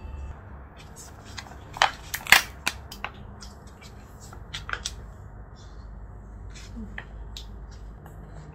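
Plastic food packaging being handled: a film lid peeled off a plastic tub and a plastic bag moved about, giving crinkles and sharp clicks, the loudest cluster about two seconds in.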